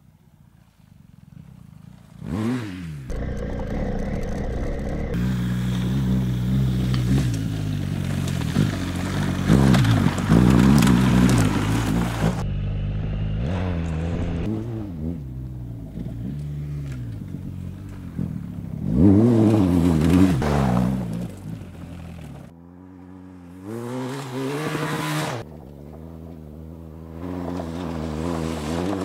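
BMW R 1250 GS's 1250 cc boxer twin revving hard off-road, its pitch climbing under throttle and dropping back at each shift or throttle-off, over several passes. It is faint at first and comes in loudly about two seconds in, with the level rising and falling between passes.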